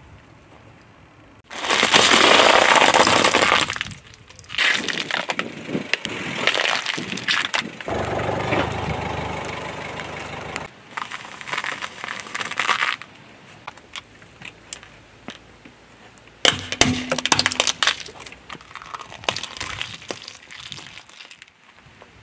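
A car tyre rolls over and crushes objects on asphalt, with several bouts of loud cracking, snapping and crunching. Among them, a bundle of dry spaghetti snaps under the tyre and eggs crack.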